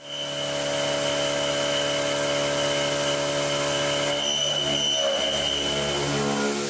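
Doosan PUMA TT1800 CNC turning centre running, a steady machine whine made of several held tones, with the pitches shifting about two thirds of the way in.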